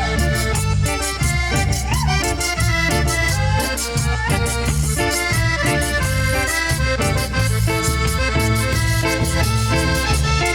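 Cumbia band playing an instrumental passage: a melody line over bass and a steady percussion beat.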